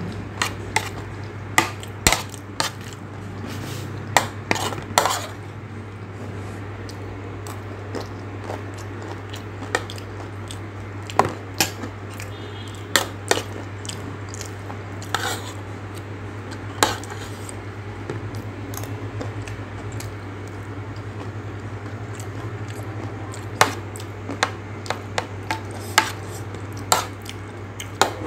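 Metal spoon clinking and scraping against a ceramic plate while scooping up aalu nimki: irregular sharp clinks, about one a second, over a steady low hum.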